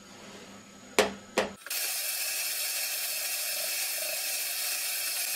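Two sharp clicks close together about a second in, followed by a steady hiss that starts abruptly and holds.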